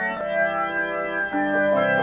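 Electronic keyboard on an organ sound, playing held chords that change three times.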